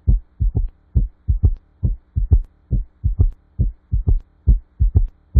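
Recorded heart sounds as heard through a stethoscope: a fast gallop rhythm of low, muffled thumps grouped in threes, about two cycles a second. An extra sound is added to B1 and B2, typical of a gallop with tachycardia.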